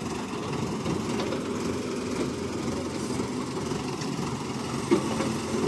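Heavy diesel engine of earth-moving machinery running steadily, with a short sharp knock about five seconds in.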